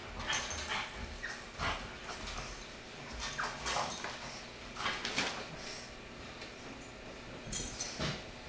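Pug puppy whimpering and crying over and over in short, high whines, begging for food.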